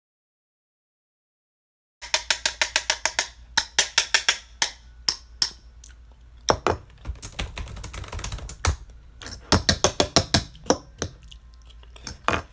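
Dead silence for about two seconds, then quick sharp clicks in uneven runs, up to about eight a second, with short pauses between the runs.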